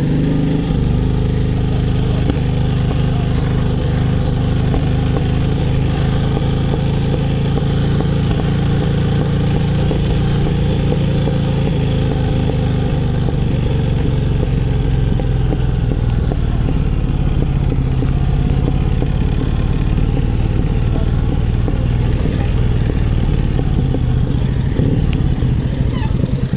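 Brough Superior SS100 V-twin motorcycle engine running steadily at an even pitch.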